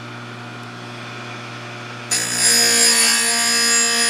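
Bench saw-chain grinder: its motor hums steadily, then about two seconds in the grinding wheel is brought down onto a chain cutter tooth and grinds loudly for about two seconds.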